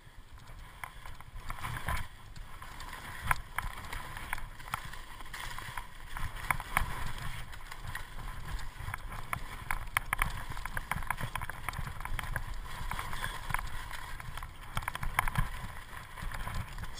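Skis sliding and scraping over packed snow during a downhill run, with many small clicks and chatter. Wind rumbles on the action camera's microphone.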